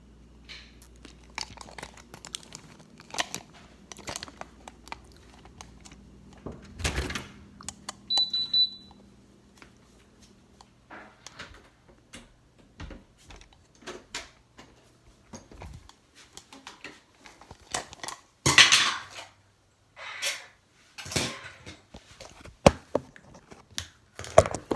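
Intermittent clicks, knocks and clatter of small containers and objects being picked up and set down, loudest about two thirds of the way through. A short high beep sounds about a third of the way in.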